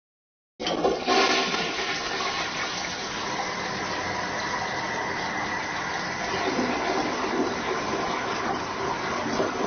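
Toilet flushing: the rush of water starts suddenly about half a second in, is loudest in the first second, then runs on steadily.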